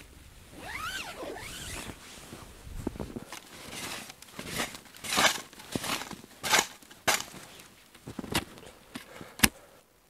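A tent zipper being pulled, with a short rising-and-falling zip about a second in. After it comes a run of sharp rustles and scrapes of tent nylon and clothing, loudest in the second half.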